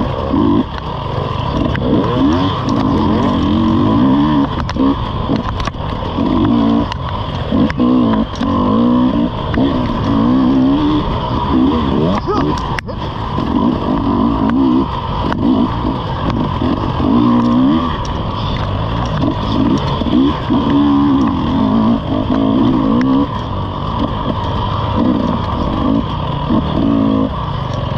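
Dirt bike engine heard close up from on the bike, revving up and dropping off over and over as the rider works the throttle through the trail, with scattered knocks from the bike over rough ground.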